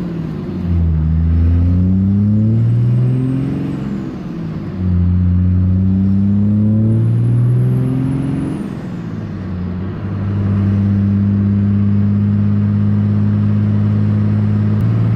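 6.7-litre Cummins inline-six turbo diesel accelerating through the gears, heard from inside the cab: the engine note climbs, drops at a gear change about four and a half seconds in, climbs again, then settles into a steady cruise about two-thirds of the way through. A faint high turbo whistle rises and falls with each pull as boost builds.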